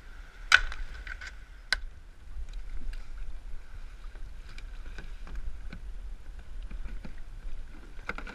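Kayaks bobbing in fast floodwater: water sloshing and rumbling against plastic hulls, with two sharp knocks about half a second and nearly two seconds in, then lighter knocks and bumps.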